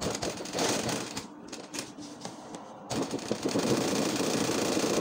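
Domestic sewing machine stitching a free-motion spiral fill stitch in embroidery: a few short, uneven spurts of rapid needle strokes, then running steadily from about three seconds in.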